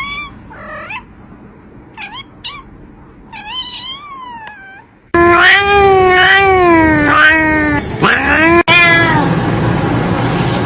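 A cat meowing: a few short, softer meows, then about five seconds in a much louder, long drawn-out meow that wavers up and down in pitch, followed by several shorter meows.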